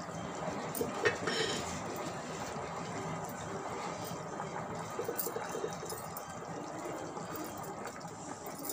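Thick, cornflour-thickened gravy bubbling at a steady boil in a steel pan.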